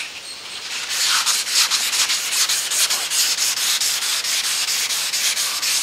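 Hand sanding block with 400-grit wet sandpaper rubbed back and forth over primer on a car body panel, a rhythmic wet hiss with quick, even strokes. It is block sanding the guide coat off the primer before paint.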